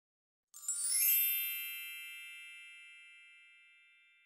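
A sparkling chime sound effect for a logo intro: a quick upward shimmer of bell-like notes about half a second in, then ringing tones that slowly fade away.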